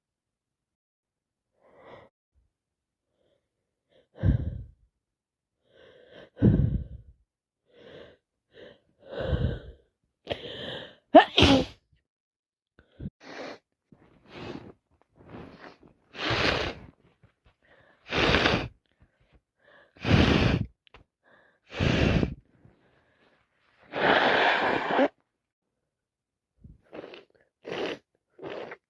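A woman with a head cold sneezing over and over, a dozen or so short sneezes and catching breaths spaced a second or two apart, with one longer, noisier burst near the end.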